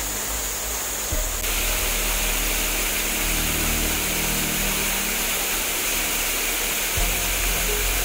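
A small waterfall's steady rushing hiss, a little louder from about a second in, with background music of held low notes underneath.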